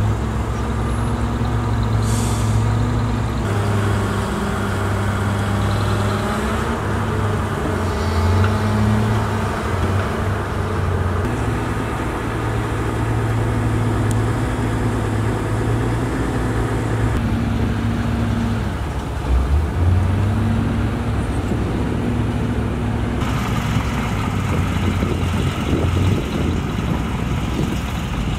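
Diesel engines of a CAT 320 excavator and a Scania dump truck running under load while the truck's raised bed tips out its soil. The engine note shifts up and down, with several abrupt changes.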